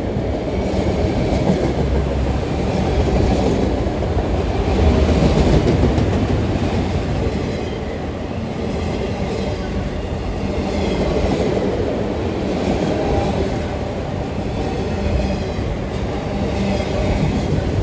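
Freight cars of a long CSX freight train rolling past, a steady rumble with wheels clicking over the rails, swelling and easing slightly as the cars go by.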